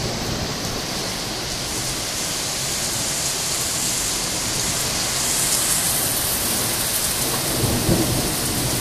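Heavy thunderstorm rain pouring down, a steady hiss that grows heavier about five to six seconds in, over a low rumble of thunder.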